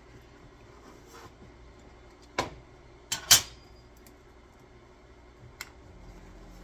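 Handling noise from small hard objects set down and picked up on a workbench: four sharp clicks and knocks, the loudest about three and a half seconds in.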